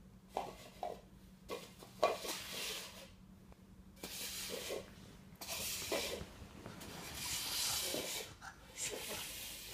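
Styrofoam cups handled on a hardwood floor: a few light taps as cups are set down, then stretches of scraping and rubbing as they are slid and shuffled about.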